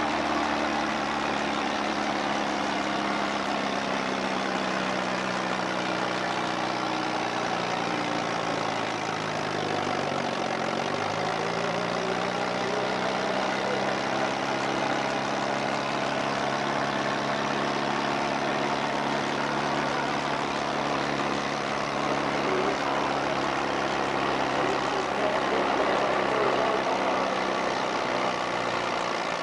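Farm stock pulling tractor's engine running under heavy load as it drags a weight-transfer sled, a steady drone. About eight seconds in the pitch sags as the engine lugs down, then climbs back up a few seconds later and holds.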